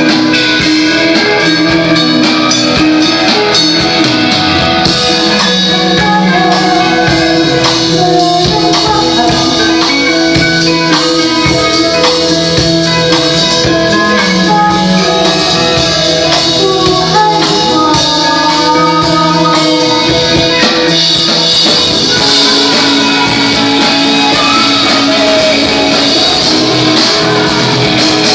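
Live band playing a song: guitars over a drum kit, with singing; the sound gets fuller and brighter about two thirds of the way in.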